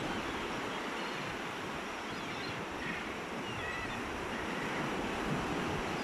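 Ocean surf washing steadily onto a sandy beach, with a few faint gull calls about halfway through.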